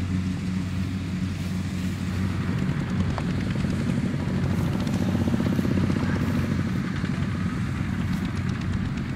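Two-wheel walking tractor's single-cylinder diesel engine running steadily while pulling a heavily loaded trailer past, its firing beat loudest about halfway through.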